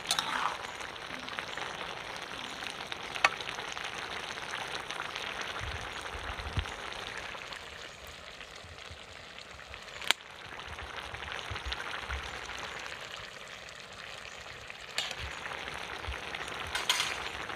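Chopped bottle gourd cooking over high heat in its own released water in a large aluminium pot, a steady sizzle. A couple of sharp clicks, about three and ten seconds in, and a few dull knocks.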